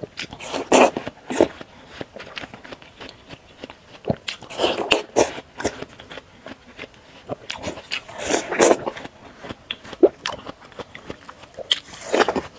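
Biting into and chewing sticks of watermelon close to a clip-on microphone, in bursts of crunching every three to four seconds with quieter chewing between.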